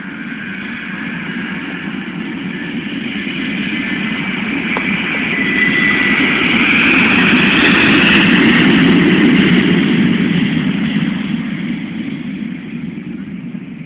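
An airplane's engines at takeoff power as it passes: the noise swells to a peak about eight seconds in, with a whine near the top, then fades as it moves away.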